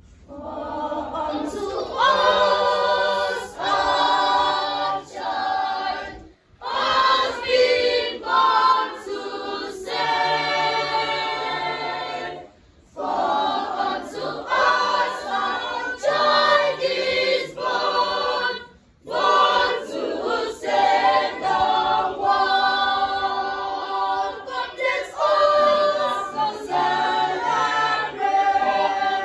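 Youth choir singing together from the sheets, in phrases with brief breaks about six, thirteen and nineteen seconds in.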